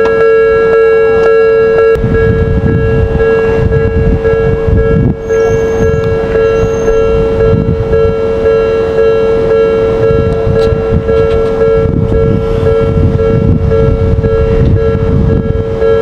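Japanese railway level-crossing warning bell ringing continuously as a steady pitched alarm. From about two seconds in, a low rumble joins it from the approaching Odakyu Line electric train.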